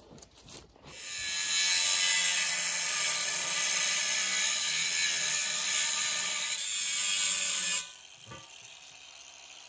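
Cordless angle grinder with a thin cut-off wheel cutting through steel pipe: a steady, high grinding whine that starts about a second in. Near the end the wheel is lifted off the cut and the sound drops sharply to a faint run.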